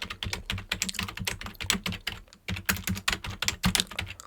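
Fast, irregular typing on a computer keyboard, key clicks following one another in quick runs with a brief pause a little past halfway; the typing stops at the end.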